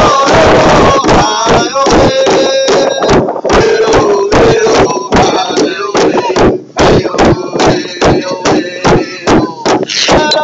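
A large powwow drum beaten in unison by several drummers with drumsticks, a steady, even beat, while a lead singer sings over it.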